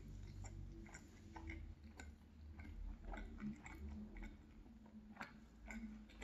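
Faint close-miked chewing of a mouthful of food with the mouth closed, with soft wet mouth clicks coming irregularly several times a second.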